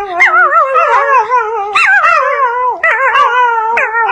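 Dogs howling together, several overlapping voices with a wavering pitch, each howl sliding down and starting again every second or so.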